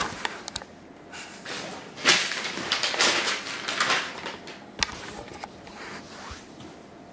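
Handling noise: rustling with scattered clicks and knocks, loudest as a stretch of rustling a couple of seconds in, as the laptop box and the hand-held camera are moved about.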